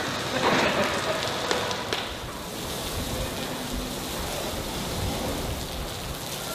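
Water spattering and dripping off an aircraft wing as it is washed, a steady rain-like patter, heavier in the first two seconds.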